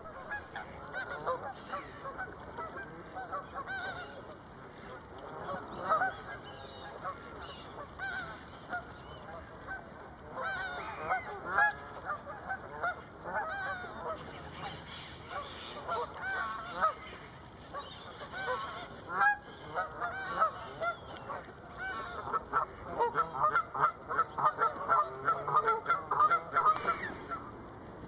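A flock of Canada geese honking, many short calls overlapping, with a dense run of rapid honks in the last few seconds.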